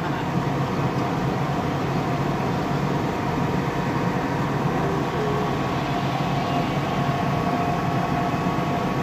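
Steady drone of a running engine or machine: an unbroken low hum with a few level higher tones over it.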